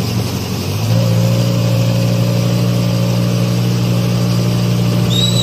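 Heavy-machinery engine running hard and steadily, rising to a higher, louder pitch about a second in and holding there. A high chirp comes near the end.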